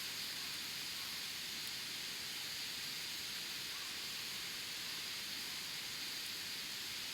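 Wood campfire burning: a steady hiss with a few faint crackles.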